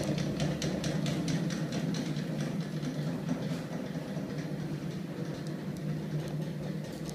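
Homemade magnet-driven crankshaft machine with a heavy flywheel, turned by a small electric motor, running steadily: a constant hum with a quick regular ticking, about four ticks a second, that fades about three seconds in.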